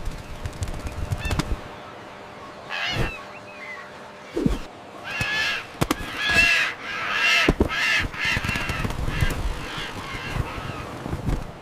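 Seagull calls, a run of harsh squawking cries, most of them close together in the second half, with scattered short clicks and taps.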